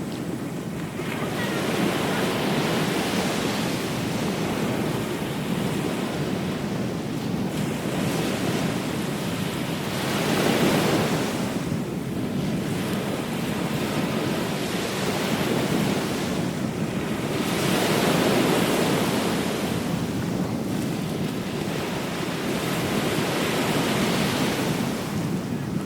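Ocean surf on a beach: a continuous wash of waves, swelling as each one breaks every few seconds and then easing off.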